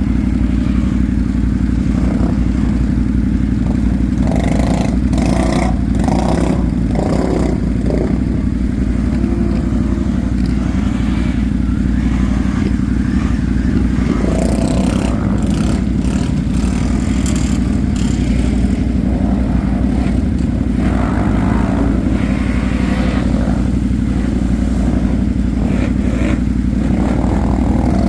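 ATV engine running steadily, with intermittent clattering and scraping over it.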